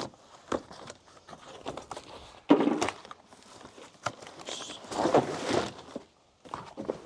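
Cardboard box of mud flaps being opened and its packaging handled: scattered clicks and knocks, with two louder scraping, rustling bursts about two and a half and five seconds in.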